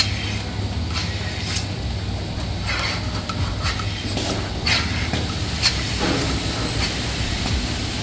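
Dairy milking machinery running with a steady low hum, with irregular metallic clanks and clicks over it.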